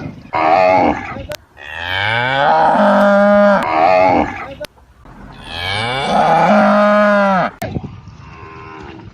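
Cow mooing: a short call, then two long, loud moos that rise in pitch and hold.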